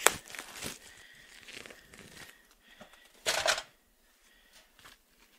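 Plastic packaging being torn and crinkled as a block of raw ground beef is unwrapped, with a short louder burst about three seconds in.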